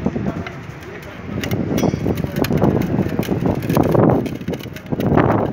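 Wind buffeting the microphone in an uneven rumble, with scattered clicks and knocks from hands and a screwdriver working on a plastic operator cover.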